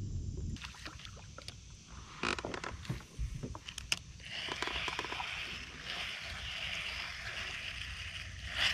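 Small boat on a river: scattered knocks and clatter against the hull, then from about four seconds in a steady hiss of moving water.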